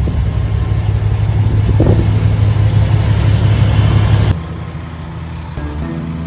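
Semi truck's diesel engine running with a heavy, steady low rumble. About four seconds in it cuts off abruptly to a quieter steady hum with faint tones.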